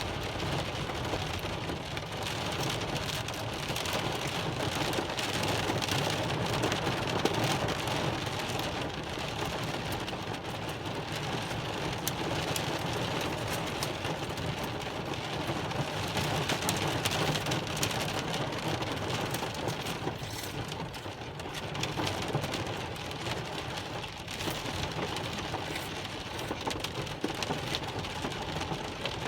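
Heavy rain pouring steadily, a dense hiss of drops striking surfaces with many small ticks, easing slightly for a few seconds about two-thirds of the way through.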